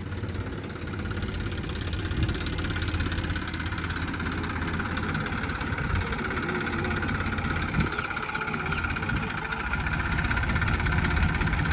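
Front-loader tractor's diesel engine running steadily at low revs.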